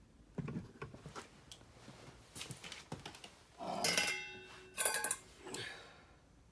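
Small metal carburetor parts being handled: scattered clicks, then two louder metallic clattering rattles with a brief ringing about four and five seconds in.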